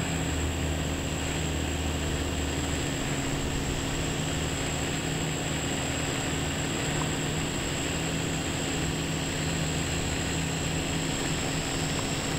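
Electric quadcopter's motors and propellers running in flight: a steady drone with a thin high whine, holding an even pitch and level.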